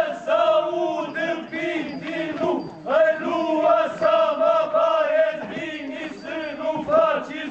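Group of men chanting together in unison in short, rhythmic phrases: a traditional Romanian winter-custom chant.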